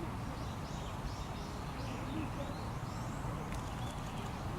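A small bird calling in a quick run of short, high chirps, about three or four a second, over a steady low rumble.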